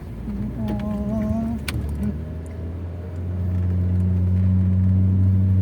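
A car's engine and road noise heard from inside the cabin, growing louder about three seconds in and then holding a steady low drone. A short held, wavering vocal sound comes about a second in.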